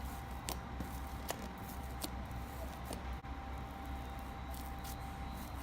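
Wet cloud slime being worked by hand, giving a few scattered small sticky clicks and squelches.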